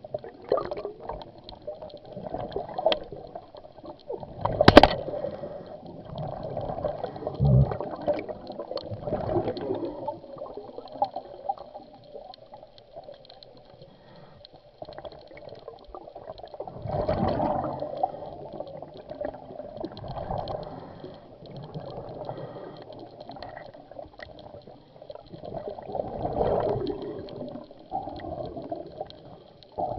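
Scuba diver's exhaled bubbles gurgling from the regulator, heard underwater in irregular bursts, with one sharp knock about five seconds in.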